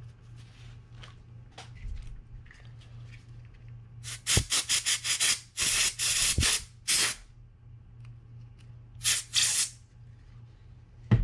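Faint paper-towel rustling, then an aerosol spray can fired through its straw nozzle onto a small fishing-reel part: a run of short hissing bursts from about four seconds in, a longer burst, and another burst near nine seconds. A small click comes at the very end.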